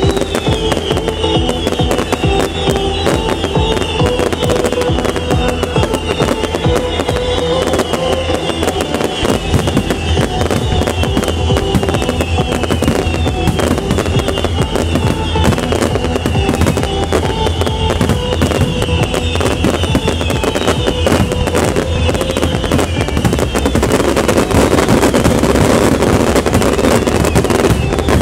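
Aerial firework shells bursting and crackling over loud trance music from the show's sound system, whose synth line repeats a short falling phrase over a steady bass. Near the end the bursts thicken into a dense, continuous crackling barrage.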